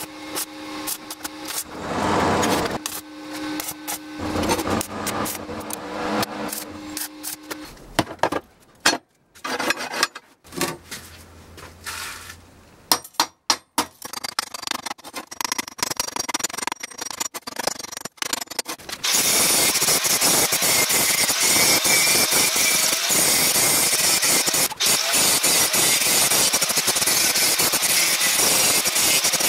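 Stick welding crackling on steel, then a chipping hammer tapping slag off the weld beads in quick runs of strikes. About two-thirds through, an angle grinder comes in and grinds the welded steel steadily and loudly.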